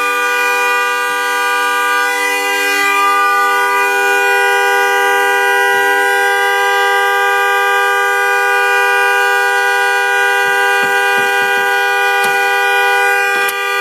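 A car horn stuck on, blaring as one unbroken, steady chord that will not shut off. A few faint knocks sound over it in the last few seconds.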